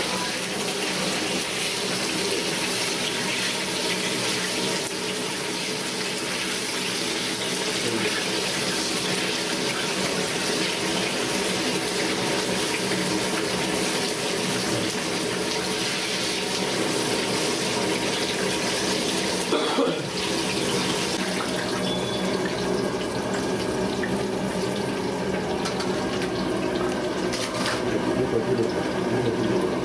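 Whole green bell peppers frying in a kadai of hot oil: a steady sizzle and bubbling.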